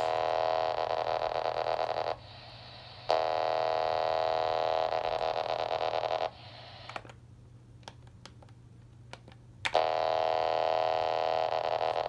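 Paging transmitter's 27.255 MHz data signal heard through a handheld scanner's speaker: steady buzzy tone bursts of about three seconds each, three times, each starting and stopping abruptly, with hiss and a few button clicks between them.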